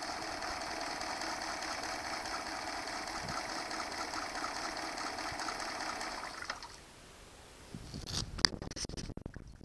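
Honda 8 hp two-cylinder four-stroke outboard idling steadily with its lower unit in a tub of water, then shut off with its stop button about six and a half seconds in. A few clicks and knocks follow.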